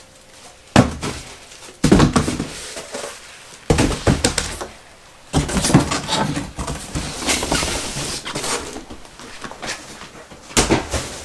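Foam packing cushions being pushed back into an empty cardboard box: about five thumps, with scraping and rustling of foam against cardboard between them.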